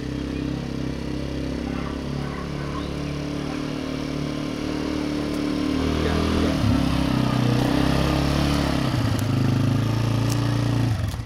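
Small gasoline engine of a youth ATV (four-wheeler) running under a child rider. It grows louder as the ATV comes closer, and its pitch shifts up and down a couple of times in the second half as the throttle changes.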